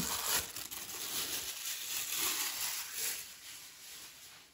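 Thin plastic food-prep glove crinkling as a gloved hand handles and arranges raw chicken drumsticks in a stainless steel pressure-cooker pot. The rustling fades out over the last second or so.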